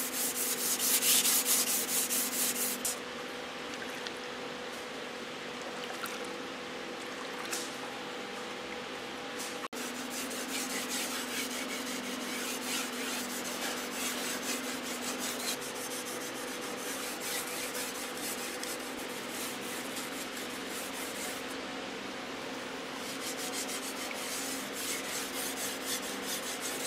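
Steel blade of a Chinese kitchen knife stroked back and forth by hand on a wet whetstone: a rhythmic rasping scrape. The first few seconds hold quick, sharp, louder strokes; after that it settles into a softer, steady rubbing.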